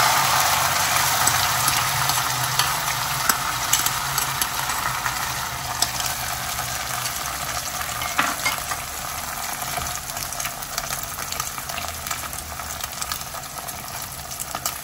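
Beaten duck egg and fish roe sizzling in hot oil in a frying pan as the last of it is poured in. The sizzle fades steadily over the following seconds, with scattered crackling pops.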